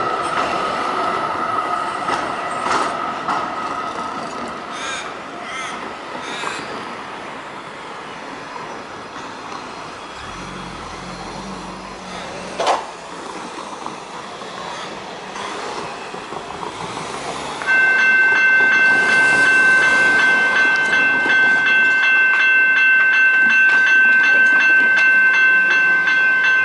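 Level crossing warning bells start suddenly about two-thirds of the way through and ring loudly and steadily as the boom gates come down. Before that, a tram crosses the railway lines with a squealing wheel tone and clicks of its wheels over the rail crossing, followed by passing car traffic and one sharp knock.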